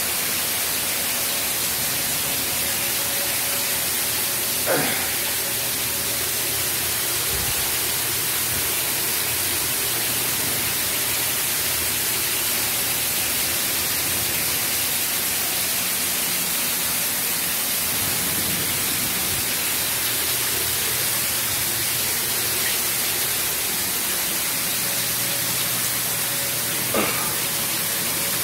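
Heavy rain pouring down in a steady hiss. A faint outdoor tornado warning siren fades in and out behind it twice. Two sharp knocks come about five seconds in and near the end.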